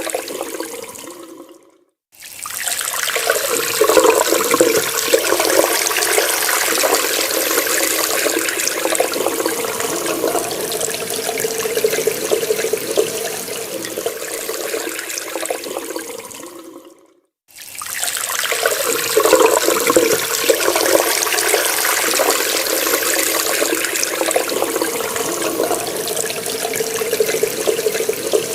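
Tap water running steadily from a faucet into a sink. It dies away to silence about 2 seconds in and again about 17 seconds in, each time starting again straight after.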